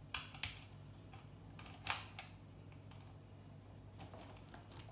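A few sharp clicks and clinks as the metal chassis and circuit board of an old electronics box are handled by hand, the loudest about two seconds in, then quieter, over a faint steady hum.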